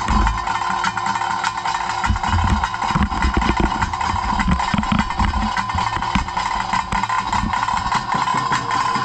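Bhuta Kola ritual music: drums and cymbals beating rapidly over a steady, high piping tone, with heavy low drumbeats through the middle.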